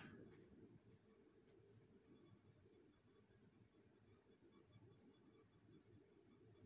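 Faint background noise with no speech: a steady, high-pitched, insect-like trill over a low noise that pulses rapidly and evenly.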